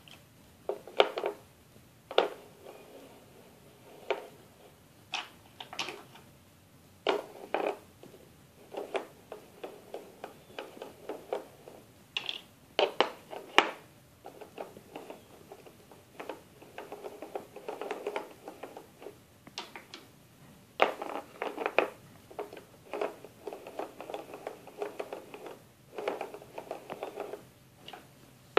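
Plastic toy gears and wooden peg pieces being handled on a wooden peg board: separate sharp clicks and knocks as pieces are lifted out and set down onto the pegs, with a few stretches of quicker clicking.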